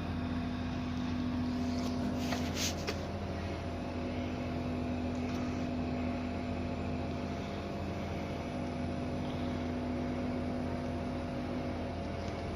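Steady hum of running machinery, with a low tone that fades in and out a few times and a few sharp clicks about two to three seconds in.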